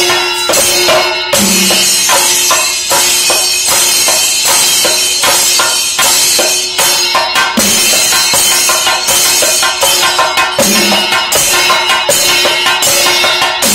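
Thayambaka: chenda drums beaten fast with sticks, over the steady clashing of elathalam hand cymbals, in a dense, unbroken rhythm.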